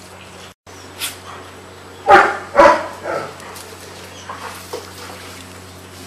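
Dog barking: two loud barks about half a second apart, a couple of seconds in, followed by a softer third.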